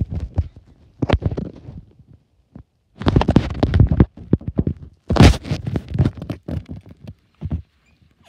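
Three bursts of rapid knocking and scratching, separated by short gaps, the last one the longest.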